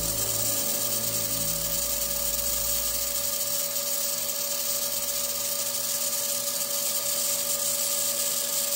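TIG welding arc on 304 stainless steel pipe: a steady hiss with a constant thin buzz, holding unbroken while the joint is welded.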